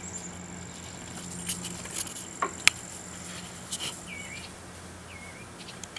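Backyard ambience: a steady, high insect trill that stops about four seconds in. Over it come scattered clicks, one sharp loud one about two and a half seconds in, and a few short chirps near the end.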